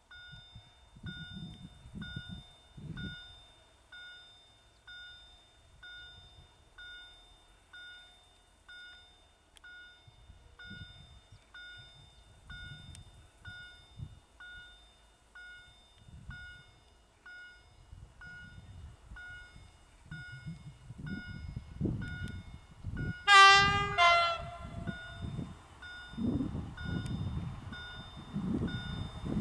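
EU07 electric locomotive running light engine toward the listener: a rumble of wheels on rail grows over the last ten seconds, and about a second of loud horn sounds near the end. Throughout, an electronic warning signal chimes about once a second.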